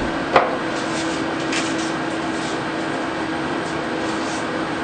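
Steady hum and hiss throughout, with a short sharp click about a third of a second in and a few faint brief rustles as blue painter's tape is pulled and pressed onto a shower caddy.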